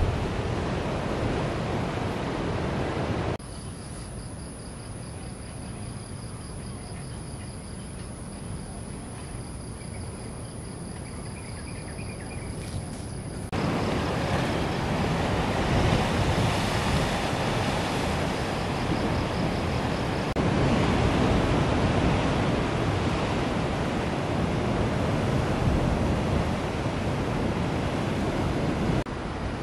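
Sea surf washing and breaking against rocks at the foot of a cliff. About three seconds in the sound drops abruptly to a quieter stretch where a steady high insect trill is heard, and about thirteen seconds in the surf comes back louder.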